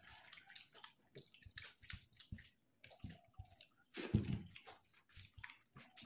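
Eating by hand: fingers squishing and mixing rice on a banana leaf, and wet chewing and lip-smacking in short, scattered clicks, with a louder mouthful just after four seconds in.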